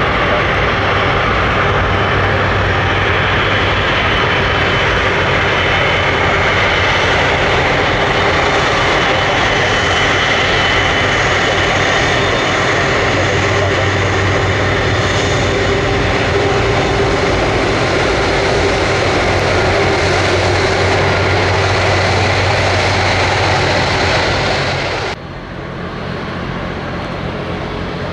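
Jet airliner engines running loud and steady, a broad rumble with a held whine over it. Near the end it drops abruptly to a much quieter steady noise.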